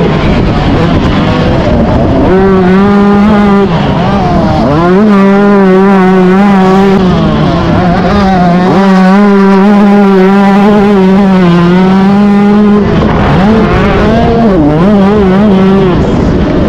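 A 125cc two-stroke motocross bike's engine, heard from on the bike, running at high revs with a steady high-pitched note. The revs dip briefly as the throttle is shut and opened again, about two seconds in, near four and a half seconds, and twice near the end.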